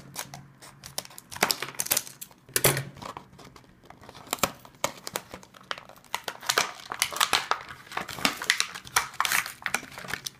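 Clear plastic blister packaging crinkling and crackling as it is cut with scissors and pulled apart by hand, a dense run of quick, irregular crackles.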